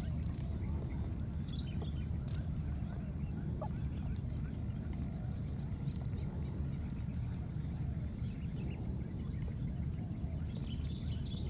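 Outdoor ambience at a muddy pool: a steady low rumble and a steady high-pitched hum, with a few faint short calls, one about two seconds in, one a little later and a cluster near the end.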